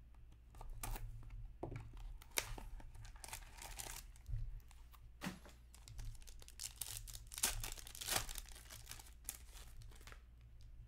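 Upper Deck Black Diamond hockey card pack being torn open by hand, its wrapper crinkling in irregular rips and crackles, loudest near the end.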